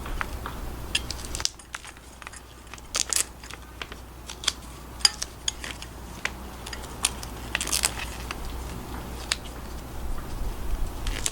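Duct tape being handled and pressed over bolts, crinkling, with scattered small clicks and taps of metal bolts and parts.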